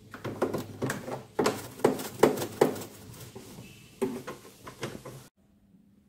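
Hand-scrubbing and wiping strokes on the plastic liner inside a refrigerator compartment, with light knocks against the walls; it cuts off suddenly about five seconds in.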